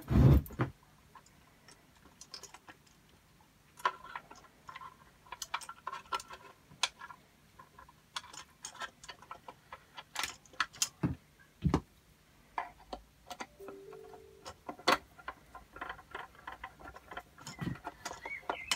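Irregular clicks, taps and knocks of painted R2-D2 droid parts being handled and fitted together by hand, with one louder knock right at the start.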